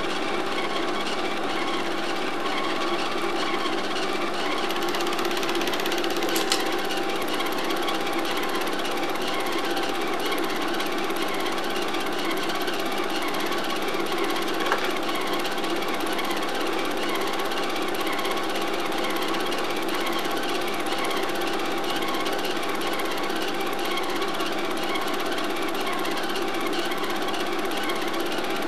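Film projector running: a steady fast clatter from the film-advance mechanism over a constant motor hum.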